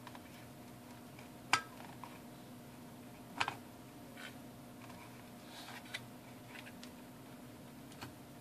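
A few light sharp clicks and taps of a small circuit board and its metal battery terminals being handled and seated into a plastic clock housing, one of them a quick double click, over a faint steady hum.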